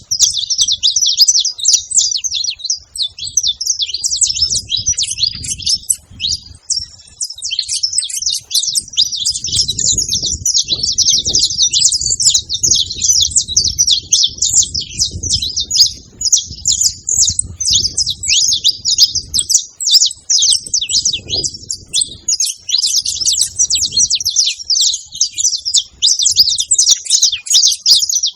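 A pair of saffron finches, male and female, chirping and twittering in a rapid, unbroken stream of high notes. A faint low rumble sits underneath for about ten seconds in the middle.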